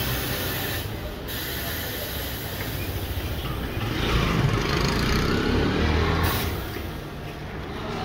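Pneumatic bead breaker on a Coseng tyre-changing machine hissing with compressed air as it pushes a car tyre's bead off the rim. The hiss dips briefly about a second in, grows heavier around four seconds, and cuts off sharply just after six seconds.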